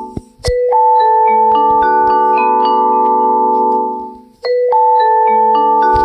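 A phone ringtone played on marimba-like mallet tones: a short melodic phrase of ringing notes builds up, fades out, and starts over about four seconds later.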